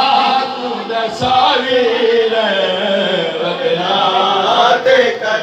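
Men chanting a noha, a Shia mourning lament, led by one man's loud voice into a microphone, with the long wavering notes of a sung lament.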